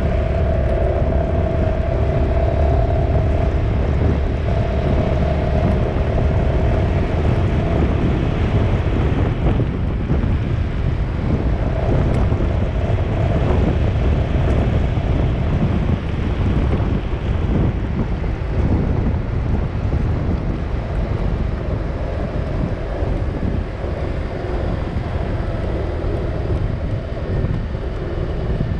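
Steady rumble of a moving vehicle, with wind on the microphone. A humming tone from the drive fades out about ten seconds in.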